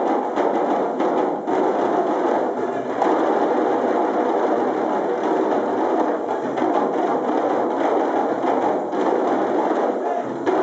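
A group of djembe drums played together by hand, many strokes overlapping into a steady, unbroken rhythm.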